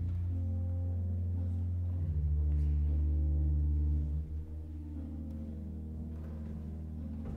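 Pipe organ playing slow, sustained chords over a deep pedal note. The bass is loudest in the first few seconds and falls away about four seconds in as the chord changes.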